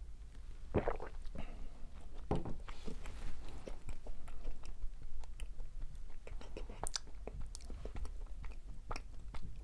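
Chewing and biting into macarons, with many small crackles and a few louder crunches of the crisp shells.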